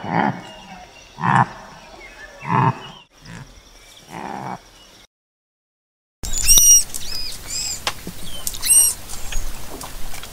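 A pronghorn's short calls, about five of them roughly a second apart, fading towards the end. After a second's silence, a manatee gives high, squeaky underwater chirps, several of them bending up and down in pitch.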